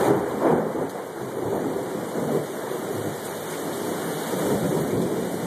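Heavy tropical-storm downpour: rain pouring steadily and hard.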